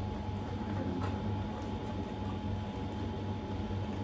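Steady low mechanical hum of room noise with a thin steady high tone, and a few faint ticks, such as packaging being handled.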